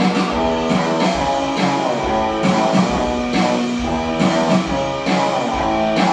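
Live rock band playing an instrumental passage: electric guitar melody over drums, with a steady beat.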